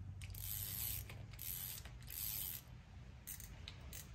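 An ice fishing reel being turned by hand: its gears and ratchet click through three short spells of cranking, followed by a few single clicks as it is handled.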